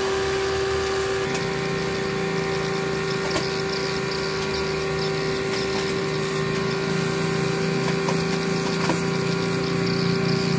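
A machine running steadily with a constant whining hum, joined by a lower droning hum that comes in about a second in and holds.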